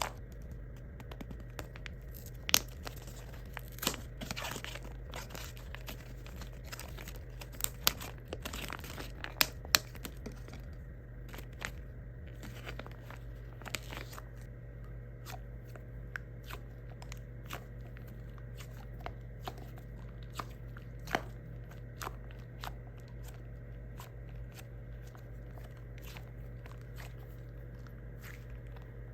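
Squishy toys being squeezed and handled close to the microphone, giving crinkling and crackling with scattered sharp clicks. The clicks come thick for the first ten seconds or so, then sparser, over a steady low hum.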